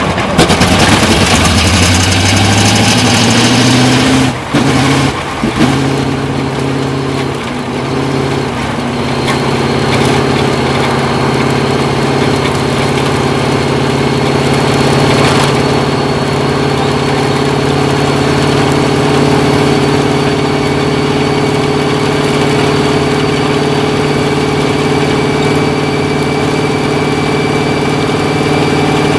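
Indy car's engine heard from on board, revving up as the car pulls away, with two quick breaks in the note as it shifts up. It then runs at a steady engine speed.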